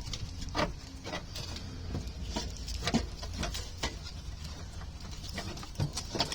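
Irregular light clicks and knocks of tools and metal parts being handled, the sharpest about three seconds in and again near the end, over a faint steady low hum.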